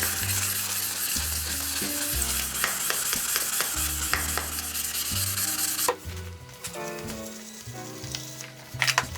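Steady abrasive hiss of an aluminium motorcycle silencer being polished, which cuts off abruptly about six seconds in, followed by a few sharp clicks near the end. Background music with a bass line plays throughout.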